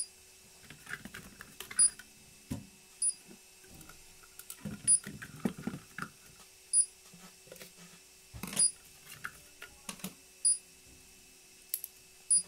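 Plastic filament spools being swapped on a 3D printer's frame-mounted holder: irregular clicks, knocks and rustles as the spool is handled and the filament end is pulled free. Faint short high beeps come about once a second, the printer's beeper signalling that it is paused for a filament change.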